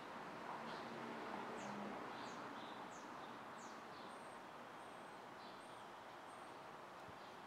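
Distant city street traffic as a steady hum, with a vehicle engine swelling briefly in the first couple of seconds. Small birds chirp over it: a quick run of falling chirps, then a few short high peeps.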